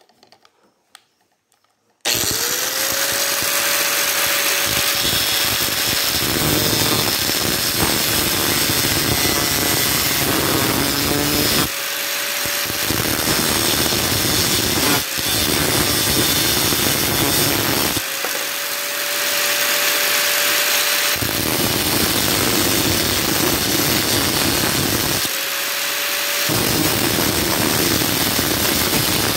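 Angle grinder switched on about two seconds in, its motor whining up to speed, then cutting into a motorcycle fuel pump housing with an abrasive disc. The loud grinding eases three times as the cut lets up, leaving the grinder's steady whine.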